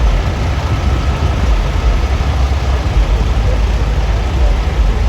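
Semi-truck diesel engines idling: a steady low rumble.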